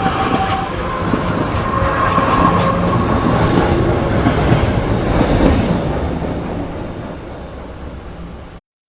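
A rumbling, train-like sound effect of the 'strange sounds' sky-noise kind, with long drawn-out metallic screeching tones. It swells, slowly fades, and cuts off abruptly near the end.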